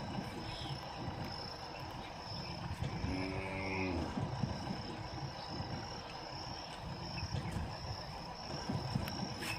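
Insects chirping in a steady, evenly pulsing high trill over a low outdoor rumble. About three seconds in comes one brief, low animal call lasting about a second.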